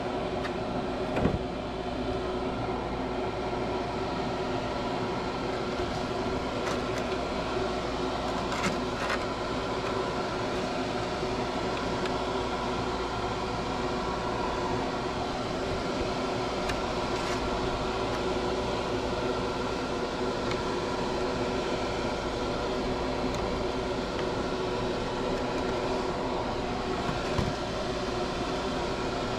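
Spray booth extraction fan running with a steady hum. A few light clicks come from the clear Lexan body being handled, about a second in, around the middle and near the end.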